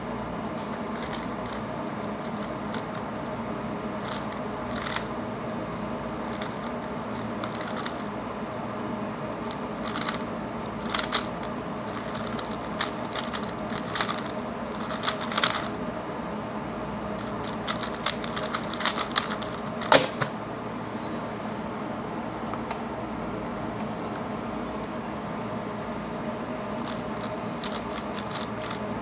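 A 3x3 speedcube being turned fast during a timed solve: quick runs of small plastic clicks and clacks as the layers snap round, thickest in the middle with one sharp click near the end of that run. A steady hum underneath.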